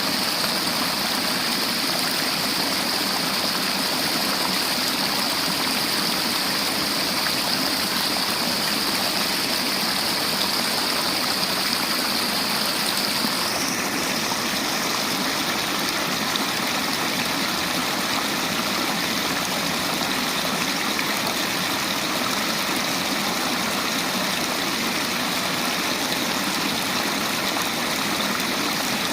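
River water flowing and rushing over stones in a steady stream, its hiss shifting slightly in tone about halfway through.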